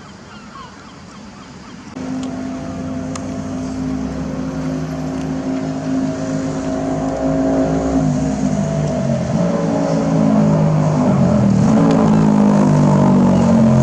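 A large engine running, coming in suddenly about two seconds in, then rising and falling in pitch as it revs and growing louder from about eight seconds in.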